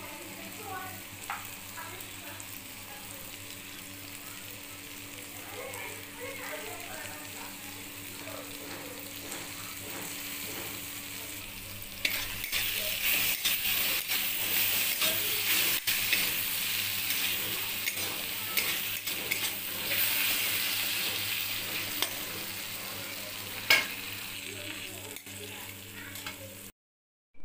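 Dry fish, brinjal and green chillies sizzling in a hot pan while a spatula stirs them, clicking and scraping against the metal. The sizzle gets louder about halfway through, there is one sharp knock of the spatula a few seconds before the end, and the sound cuts off suddenly near the end.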